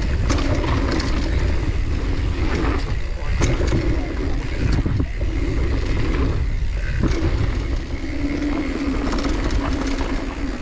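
Mountain bike riding a dirt trail, heard from a camera on the rider: heavy wind buffeting on the microphone over the rolling of the tyres, with scattered clicks and rattles as the bike goes over bumps.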